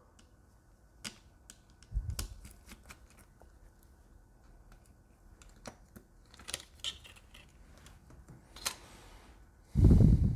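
Small scattered clicks and taps of a screwdriver and metal parts being handled as the cooling fan is unscrewed from a MacBook Air, with a knock about two seconds in and a dull thump near the end.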